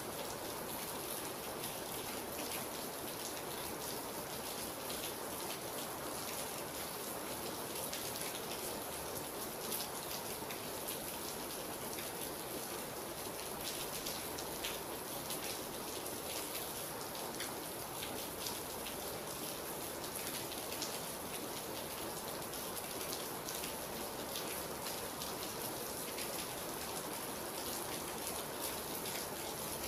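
Steady rain falling, with many individual drops pattering on a surface.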